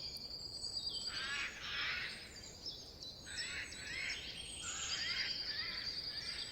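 Several birds singing in a forest: a thin, steady high whistle at the start and again near the end, with runs of quick rising chirps in between, over a soft background hiss.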